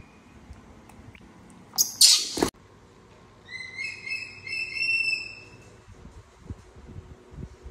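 A short, loud rush of rustling noise about two seconds in, then a cluster of short, high-pitched squeaks from a baby macaque, a few seconds later.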